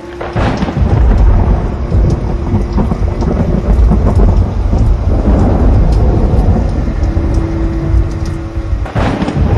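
Thunder with rain: a loud, deep rumble breaks in about half a second in and rolls on, and a fresh crack starts another peal near the end.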